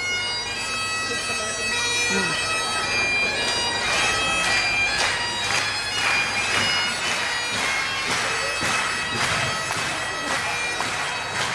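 Highland bagpipes playing the tune for a Highland Fling over their steady drones. From a few seconds in, a regular thud about twice a second comes from many dancers landing together on the hall floor.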